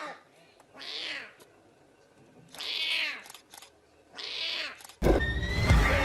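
Lion cub mewing: four short, high, meow-like calls, spaced about a second apart. About five seconds in the sound cuts abruptly to loud music.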